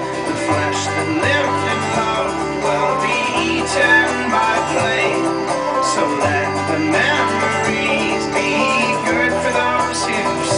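Recorded folk-rock music with banjo and guitar playing over a steady beat.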